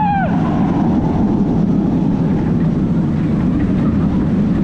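B&M wing coaster train running on its track: a steady low rumble of the wheels with wind rushing over the onboard camera.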